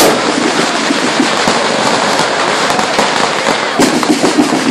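Strings of Chinese firecrackers going off in a loud, dense crackle of many small rapid bangs, with a sharper bang right at the start.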